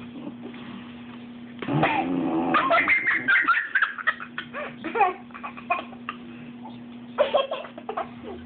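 Young child laughing in a long giddy run of giggles starting about two seconds in, then a shorter burst of laughter near the end.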